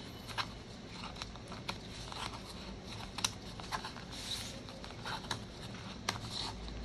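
Small scissors snipping and working at the string tied around a paper parcel: a handful of sharp, irregularly spaced clicks, with light rustling of the string and paper between them.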